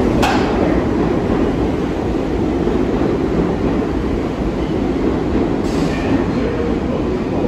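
New York City subway train moving through the station: a steady, loud rumble of wheels on rails. It has a brief sharp high sound about a quarter second in, and a short hiss at about six seconds.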